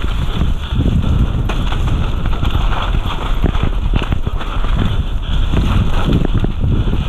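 Mountain bike rattling and clattering over the bumps of a dirt trail descent, with many irregular knocks over a continuous rumble of tyres on the ground and wind on the helmet-camera microphone.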